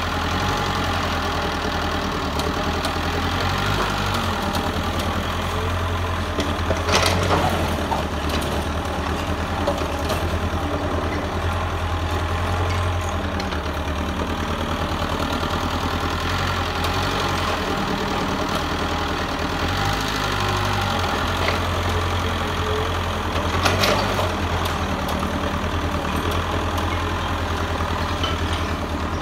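Mitsubishi excavator's diesel engine running steadily as the machine works, its low note dipping and shifting several times. A short sharp clank sounds about seven seconds in and again near twenty-four seconds.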